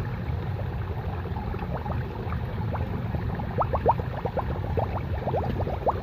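Water being collected from a stream into a container: a run of quick bubbling gurgles starts about two seconds in and grows busier, over a steady low rush of moving water.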